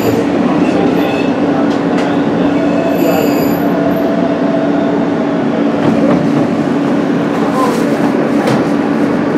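Inside an Alstom R160 subway car rolling into a station: steady wheel-and-track rumble under a constant low motor hum, with a brief thin, high wheel squeal about three seconds in.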